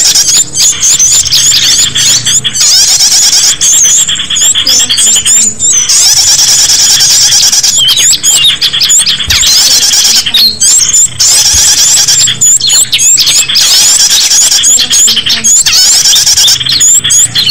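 Bird-lure recording of small songbirds: a loud, dense chatter of rapid high-pitched chirps and squeaks, many birds calling at once, broken by brief gaps every second or two.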